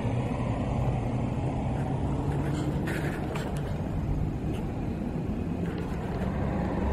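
A steady low engine rumble with a faint hum, and a few light clicks about three seconds in.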